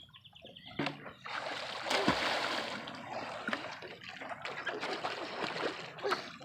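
Water splashing and trickling from paddling, in irregular splashes with quieter gaps between them.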